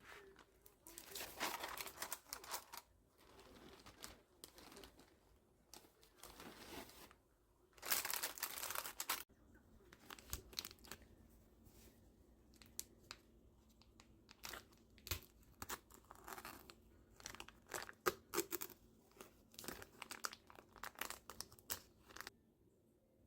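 Packaging crinkling and tearing in several rustling stretches, loudest about eight seconds in, followed by a run of light clicks and knocks from kitchen handling.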